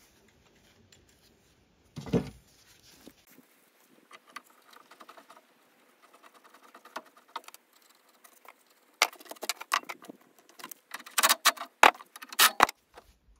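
Metal parts and hand tools being handled: a dull thump about two seconds in, faint rattling, then a busy run of sharp clicks, clinks and knocks in the last few seconds.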